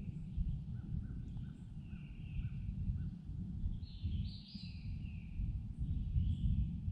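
Wild birds singing in the woods, with repeated falling, warbling phrases twice, and a run of about six short, evenly spaced calls in the first few seconds, over a steady low rumble that is the loudest sound.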